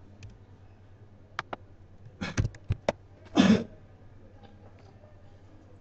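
Computer keyboard keystrokes: a few separate key clicks, then a quick cluster of them, while a line of code is edited. About three and a half seconds in comes a short, louder cough-like burst, the loudest sound here.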